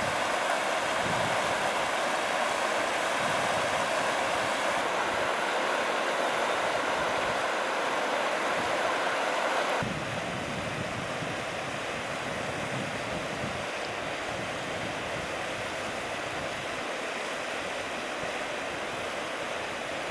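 Flash-flood water rushing through a desert wadi: a steady, even rushing noise. About halfway through it drops a little in level.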